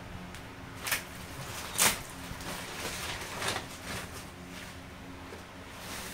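Brown paper bag crinkling and rustling as it is handled and lifted out of a cardboard box: a few short crackles, the loudest about two seconds in. A faint steady hum runs underneath.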